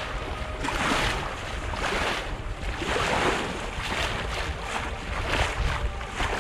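Bow wave of a Comfortina 32 sailboat rushing and splashing along the hull under sail, surging about once a second, over a low rumble of wind on the microphone.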